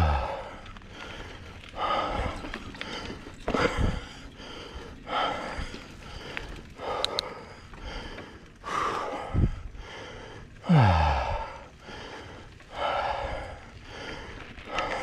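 A mountain biker breathing hard while pedalling, with a heavy breath about every one and a half seconds. A few louder exhales drop in pitch, the loudest about eleven seconds in.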